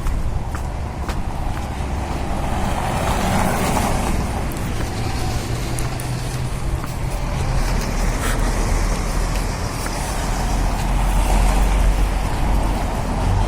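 Road traffic on a city street, cars and trucks passing with a steady rumble, with wind buffeting the microphone.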